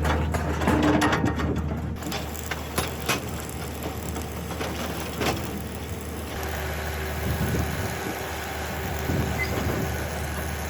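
Steady low mechanical hum with scattered sharp knocks and clicks.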